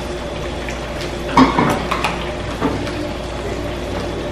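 Metal spoon stirring potato salad in a plastic bowl, knocking against the bowl a few times about a second and a half in, over a steady background hiss.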